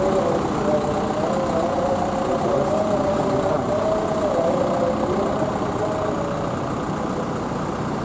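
Bus engine idling: a steady rumble with a slowly wavering drone over it.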